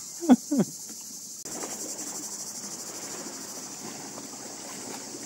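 Steady high-pitched drone of cicadas. Near the start, a person's voice is heard twice, briefly, falling in pitch.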